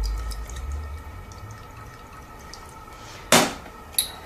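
Olive oil poured onto mashed sweet and white potato in a pan, faintly dripping, with a short knock about three seconds in and a small click near the end.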